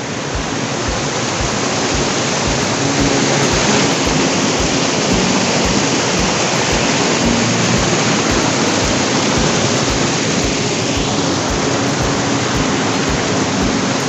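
Loud, steady rush of a fast-flowing mountain river, white water running close by. It swells a little over the first few seconds, then holds even.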